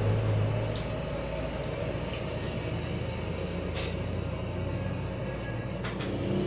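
A steady low rumble with a hum, and two sharp clinks of plates and spoons, about four and six seconds in.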